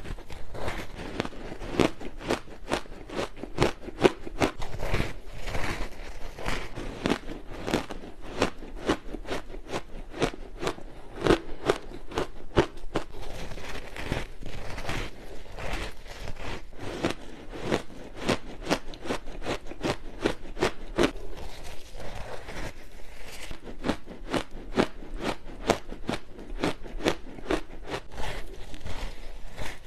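Frozen matcha ice being bitten and chewed close to the microphone: a steady run of sharp, icy crunches, several each second.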